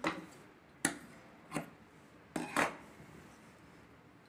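About five sharp metal clicks and knocks spread over three seconds, two of them close together, from fabric pieces with a metal zipper being handled and positioned on a sewing machine's bed.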